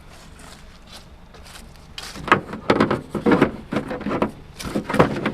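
Hard objects clattering and knocking together as junk is handled and rummaged through: quiet at first, then a quick, loud run of knocks and rattles from about two seconds in.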